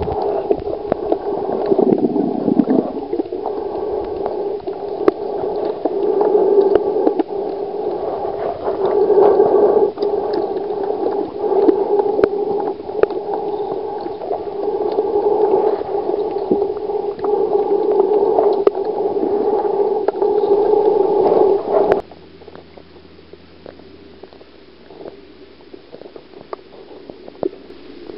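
Muffled underwater water noise picked up by a submerged camera in a flowing stream: a steady low rush with scattered small clicks. About 22 seconds in it drops suddenly to a quieter hiss.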